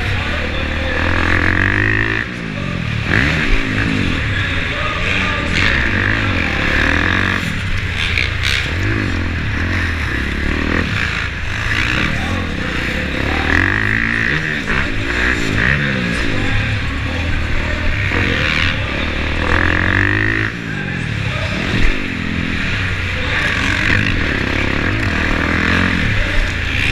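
Dirt bike engine revving up and down again and again under hard riding, heard close from the rider's helmet camera over a steady low rumble. One sharp knock late on.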